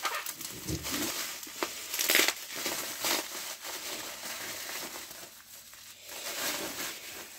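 Plastic bubble wrap being handled and pulled off a mailed package, crinkling and rustling, with a louder crackle about two seconds in.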